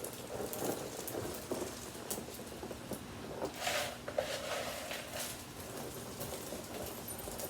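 Dry rice, cereal and broken cracker pieces pattering and rustling as they are scattered onto carpet, in irregular small clicks.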